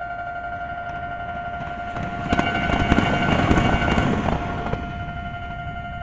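Japanese railway level-crossing alarm ringing steadily with its warning bell tone. A train passes over the crossing with a swelling rush of noise from about two seconds in to nearly five seconds, louder than the alarm.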